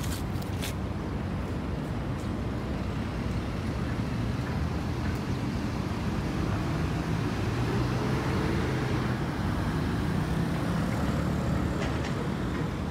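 Steady rumble of city road traffic, with an engine hum that grows a little louder through the middle as a vehicle passes.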